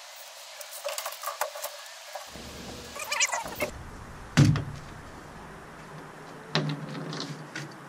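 Clicks, rattles and knocks of a plastic end cap being pried off an LED light tube, with the loudest knock about halfway through.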